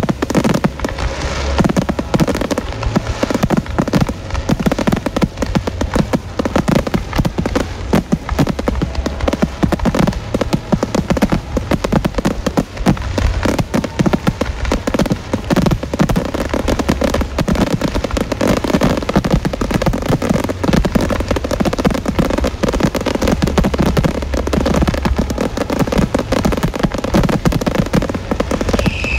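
Fireworks display: a dense, continuous barrage of shell bursts and crackling with no let-up.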